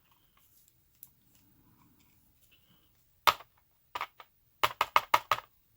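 Sharp small clicks of metal lock parts being handled while a padlock's pin stacks are taken apart: one click, then two, then a quick run of about five.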